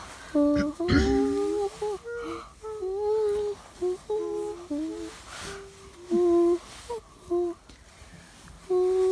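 A child humming a tune in short, separate notes, with a thump on the microphone about a second in.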